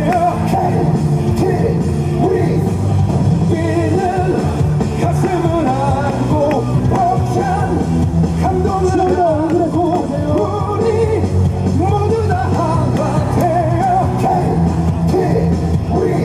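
Loud pop-rock music with a singing voice over a heavy, steady bass beat.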